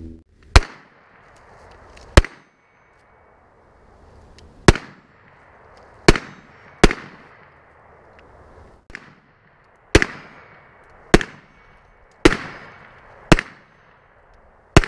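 Ruger American Pistol, a 9mm striker-fired semi-automatic handgun, firing about ten single shots at an irregular pace, mostly one to one and a half seconds apart. Each shot is a sharp crack with a brief echoing tail.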